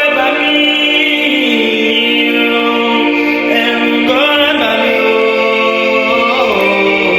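Music: voices singing a slow song with long held notes that slide up and down between pitches, without a clear drum beat.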